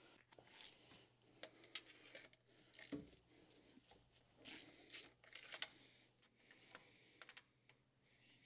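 Faint, irregular clicks and light scraping from a 3/8-inch ratchet with an extension and a 16 mm spark plug socket, working the spark plugs loose from the three-cylinder kei truck engine.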